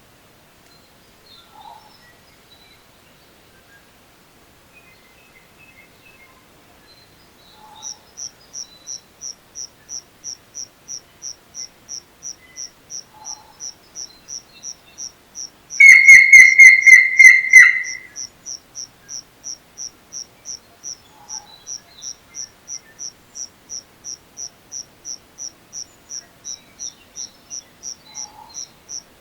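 Insect chirping, probably a cricket, in a steady high-pitched rhythm of about two or three chirps a second, starting about eight seconds in. Faint bird chirps come before it. Midway a bird gives a loud run of about ten quick whistled notes lasting about two seconds.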